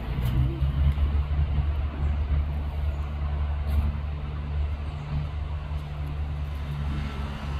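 A large engine running steadily: a loud, even low rumble with a held low hum.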